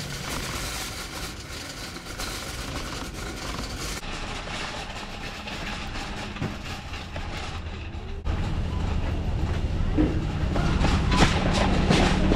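Wire shopping cart rattling as it is pushed over pavement, its wheels and basket clattering. About eight seconds in, the sound suddenly gets louder and steadier, with a few clicks near the end.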